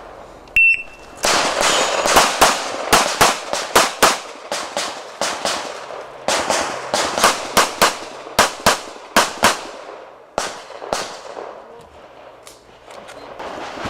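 Shot timer beeps, then a pistol fires rapid strings of shots in an IPSC stage: double taps and fast runs with short pauses between them. The shooting stops about eleven seconds in.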